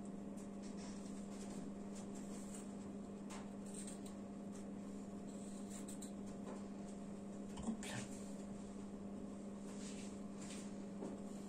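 Faint scraping of a pear being peeled by hand, over a steady electrical hum, with one light knock about eight seconds in.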